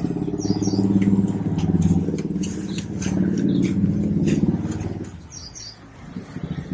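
A motor vehicle engine running, its pitch and level swelling and dipping, then fading out about five seconds in. A bird chirps briefly near the start and again near the end.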